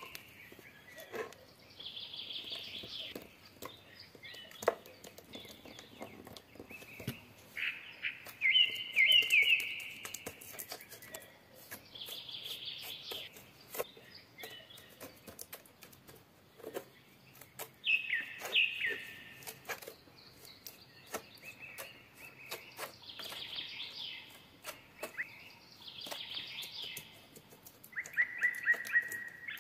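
Small birds chirping in short bursts of quick, falling notes that come back every few seconds, over faint clicks and scrapes from a plastic scraper smoothing wet cement.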